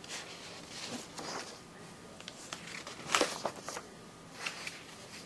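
Paper pages of a ring-binder catalog being handled and turned, a series of short rustles with the loudest page turn about three seconds in.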